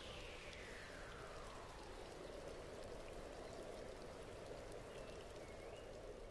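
Faint, steady, rain-like hiss of outdoor ambience picked up by a wildlife trail camera, with a tone falling steadily in pitch over the first two seconds.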